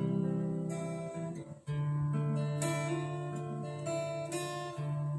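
Acoustic guitar strumming the chord intro to a song, each chord left to ring, with a new strum about every second.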